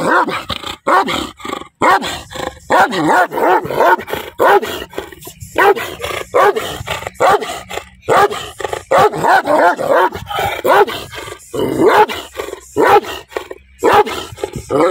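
A large black dog barking aggressively, rapid barks about two to three a second in runs broken by brief pauses.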